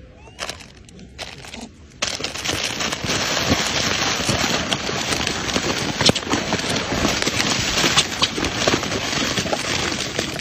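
Plastic snack-cake wrappers crinkling and crackling as many macaques grab and tear at them in a cardboard box. It starts suddenly about two seconds in and keeps up as a dense, continuous crackle.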